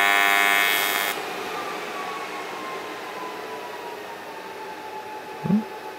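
AC TIG welding arc on aluminum buzzing steadily, then cutting off abruptly about a second in as the weld is stopped. After it, a faint whine slowly falls in pitch.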